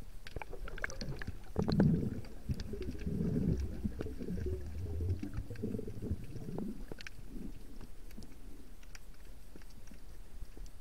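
Muffled underwater gurgling and low rumbling of water moving around a submerged camera, loudest in the first half, with scattered faint clicks.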